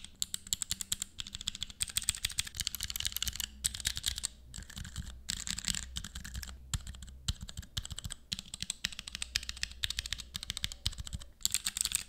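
Drop 63-key mechanical switch tester, its individual keyboard switches pressed rapidly one after another with the fingers: a fast, continuous run of key clicks and clacks, broken by a few short pauses.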